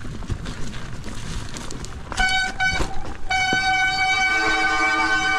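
Mountain bike rear and front brakes squealing under hard braking on a steep descent: a short high squeal about two seconds in, then a loud, steady squeal from about three seconds on. Before the squeal, the bike rattles over the rough trail.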